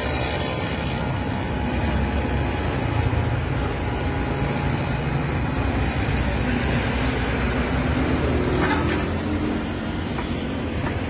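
Steady low rumbling background noise, with a sharp knock about two thirds of the way through and another near the end, from a large knife striking a wooden chopping block while cutting a fish.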